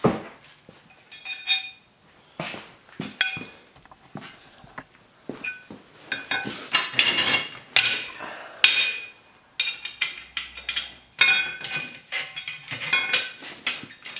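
A flat steel bar clinking and clanking against the rusty steel frame of an old bear trap as it is handled and fitted into place, with a string of irregular metallic knocks that ring briefly, busier in the second half.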